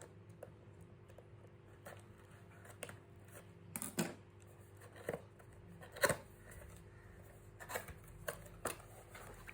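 Keyboard box and its plastic packaging being handled while the keyboard is unpacked: scattered light rustles, taps and clicks, the loudest about four and six seconds in.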